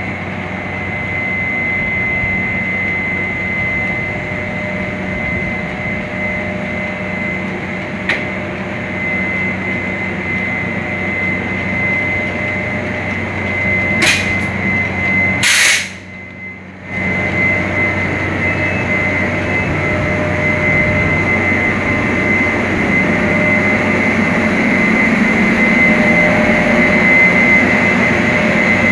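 TRA E200-class electric locomotive E212 pulling its train away from the platform: a steady electrical hum with a constant high whine, growing louder in the last third as the locomotive and coaches pass. About 14 and 15 seconds in there are two short sharp bursts of noise, and the sound dips for about a second after the second.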